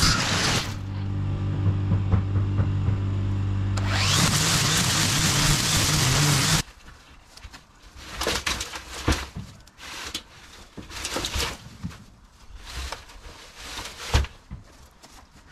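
Makita battery string trimmer running with a steady electric motor hum. Twice its spinning line cuts into overgrown grass with a loud hiss, the second time for about three seconds. The trimmer sound stops abruptly about six and a half seconds in, leaving faint scattered rustles and clicks.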